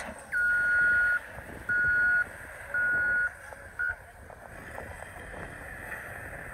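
Electronic beeper sounding four times, loud and high-pitched: a first beep of almost a second, two shorter beeps of about half a second, then a brief blip, over a steady background noise.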